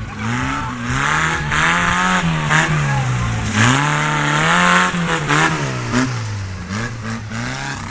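Small homemade tractor's engine running hard under load, its pitch rising and falling as it is revved up and eased off again and again while the tractor drives through mud. It is loudest around the middle.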